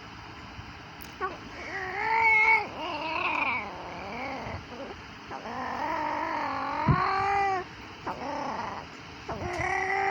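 A young child making mouth sounds: a string of high-pitched vocal calls that waver and slide up and down in pitch, with a short pause before a last held call near the end.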